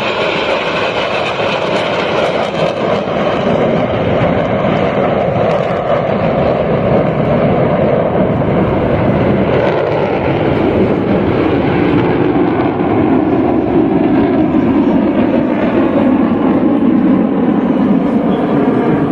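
Jet engine roar from a formation of KAI T-50B Golden Eagle jets flying overhead. It is a loud, steady rush that slowly falls in pitch as they pass.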